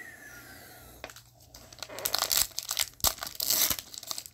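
Foil trading-card pack being torn open and crinkled by gloved hands: a crackling rip of the wrapper, loudest in the second half.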